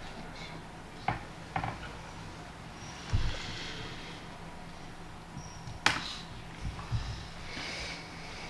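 Quiet room tone with a steady low hum, broken by a few sharp clicks and dull knocks from a laptop being operated at a table.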